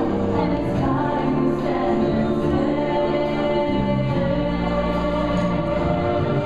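Music with a choir singing, the voices holding long notes at a steady loudness.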